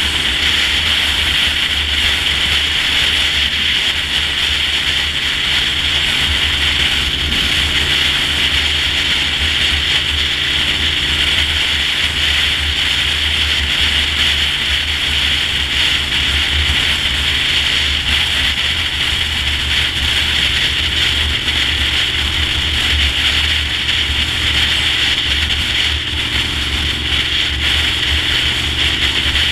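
Honda VTR1000 V-twin motorcycle running at a steady cruising speed: a low engine drone under heavy wind noise on the microphone.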